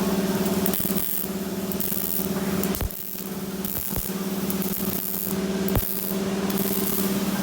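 MIG welding: the wire-fed arc hissing and crackling in short runs of about a second or less, stopping and starting, over a steady hum.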